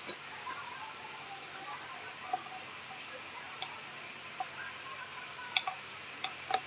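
Four light metallic clicks, mostly in the second half, as a Bajaj Pulsar 150 cylinder barrel is eased down over the piston and its metal piston-ring compressor. A cricket trills steadily behind them at a high pitch.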